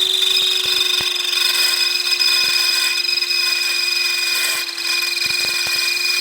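Electric drill running steadily under load as a larger bit bores out a snapped mirror stud and cuts into the surrounding casting, a steady motor hum with a high whine over it.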